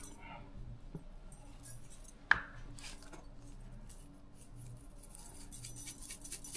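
Kitchen utensil handling: a single sharp clink about two seconds in, then a quick run of small clicks starting near the end.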